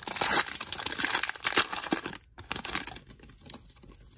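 A Pokémon booster pack's foil wrapper crinkling loudly as it is pulled open by hand for about two seconds. Fainter rustling and light ticks follow as the cards are drawn out and handled.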